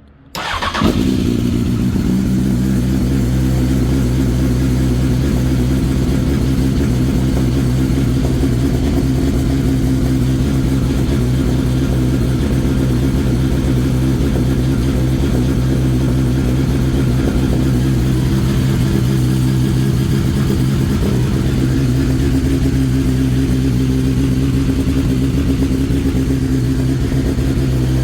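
Honda CBR954RR (SC50) 954 cc inline-four motorcycle engine cold-started at about 0 °C: it catches about half a second in with a brief rev, then settles into a steady idle.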